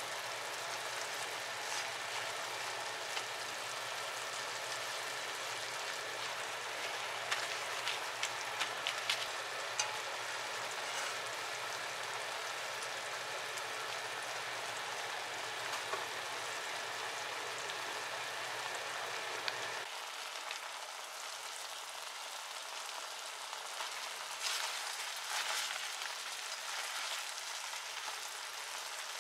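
Soy-sauce and sake braising liquid bubbling hard around chicken wings in a frying pan: a steady simmering crackle with sharper pops now and then, as the sauce reduces.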